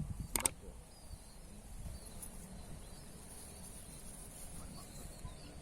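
Steady high-pitched drone of insects, with two sharp clicks close together about half a second in.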